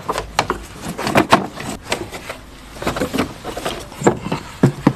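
Irregular knocks, clicks and clunks of a car's battery, air filter cover and intake duct being unfastened and lifted out of the engine bay.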